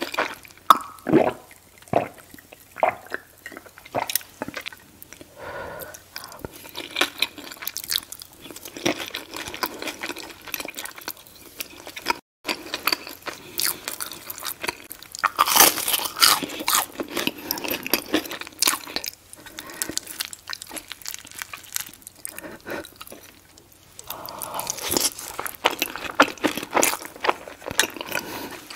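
Close-miked chewing of chicken fried steak with cream gravy and fried eggs: wet, sticky mouth sounds with crunches of the breaded crust, heard as a quick run of clicks and smacks. The chewing stops for an instant about twelve seconds in.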